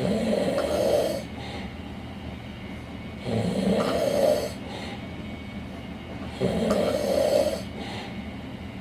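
A sleeping person snoring loudly, three snores about three seconds apart, each lasting about a second, with quieter breathing noise between them.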